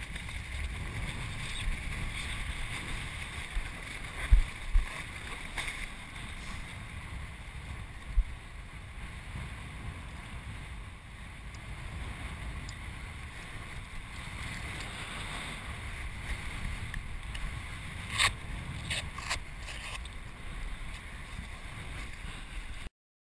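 Wind buffeting an action camera's microphone outdoors as a steady low rumble, with two heavy low thumps about four to five seconds in and a few sharp handling clicks near the end, before the sound cuts off suddenly.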